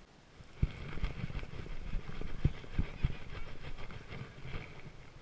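Baitcasting reel being cranked to reel in a small largemouth bass, with irregular low knocks, clicks and rattles from the reel and rod being handled close by; it starts about half a second in.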